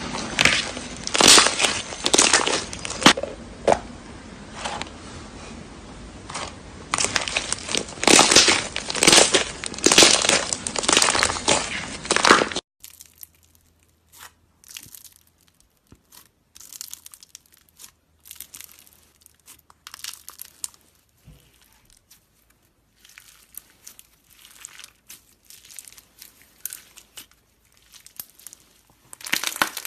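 Slime being handled, with a dense run of crackling, crinkling and crunching. About halfway through it switches abruptly to a much quieter stretch of sparse crackles.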